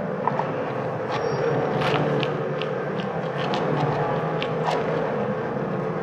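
Electronic sewing machine running, heard as a dense, steady mechanical drone with short sharp clicks scattered over it.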